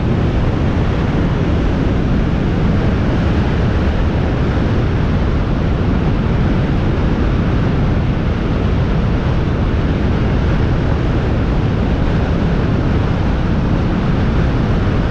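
A 2018 Honda CBR650F's inline-four engine running steadily through its stock muffler, with no revving.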